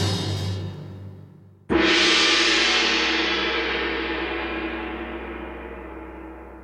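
Intro music dying away, then a single gong strike about a second and a half in that rings on and slowly fades.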